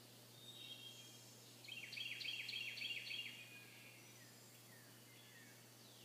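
Wild songbirds singing: one bird gives a loud, quick series of about eight falling notes lasting about a second and a half, starting near the two-second mark, while other birds whistle faintly before and after.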